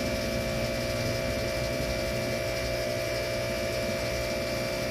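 Small aquarium powerhead pump humming steadily, a constant electric drone with several fixed tones.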